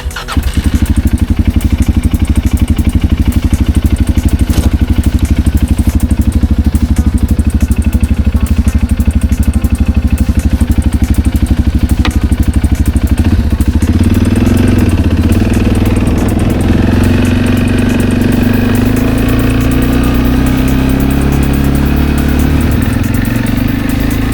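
An engine starts running abruptly and keeps going with a steady, rapid pulse. About halfway through, its pitch begins to rise slowly.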